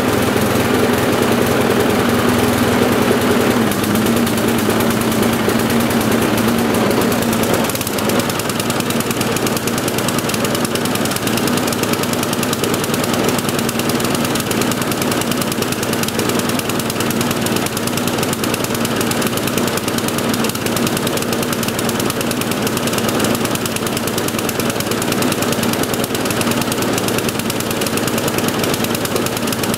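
Briggs & Stratton single-cylinder four-stroke lawnmower engine running steadily with a fast pulsing beat, then stopped at the very end. It is running below full speed, which the mechanic puts down to a carburettor needing a new diaphragm and gasket.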